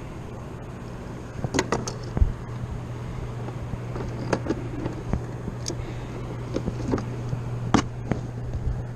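Scattered sharp clicks and knocks of hands handling gear in a kayak while working a swallowed hook out of a fish, over a steady low hum.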